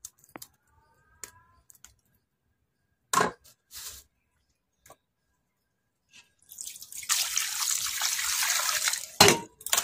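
Water poured into a steel bowl of cut fish pieces, splashing and rushing for about two and a half seconds near the end. Before it come a few light handling clicks on the bowl and one louder knock about three seconds in.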